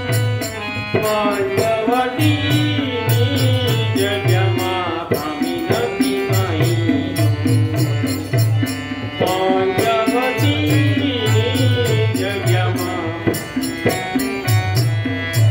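Indian devotional music: a melody with sliding, ornamented pitch over a steady drum beat, the drum dropping out briefly a few times.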